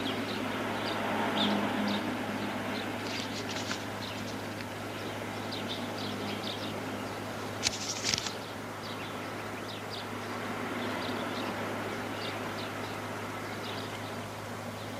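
Soundtrack of a film clip played back over loudspeakers: a steady background hiss and low hum with short high chirps scattered through it, and a brief louder hiss about eight seconds in.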